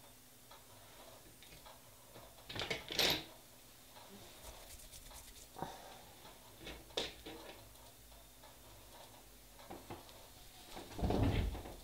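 Light handling noises of nail polish bottles and tools on a table: a few scattered clicks and taps, the loudest about three seconds in, with a short rustle near the end.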